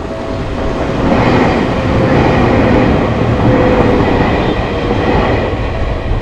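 A train running past a level crossing: a dense rumble of wheels and cars that swells about a second in and eases off near the end.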